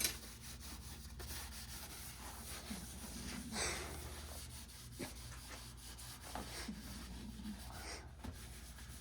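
Handling noise from work on a valve-grinding machine: scattered light clicks, knocks and scrapes of tools and metal parts, with one louder scrape a few seconds in, over a low steady hum.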